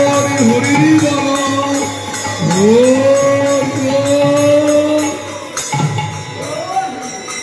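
Bengali kirtan music: hand cymbals clashing in a steady beat with khol drums, under long held notes that rise at their start, twice. The music thins out about five seconds in.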